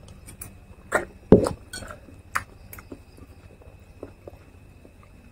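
Someone eating with a spoon: scattered clicks of a metal spoon against a plate and wet mouth and chewing sounds, with one louder knock about a second in.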